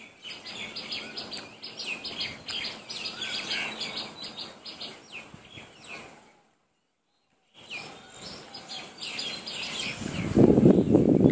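Small songbirds chirping and twittering in quick, busy calls. The sound cuts out completely for about a second past the middle. Near the end a much louder, rough, low-pitched noise comes in.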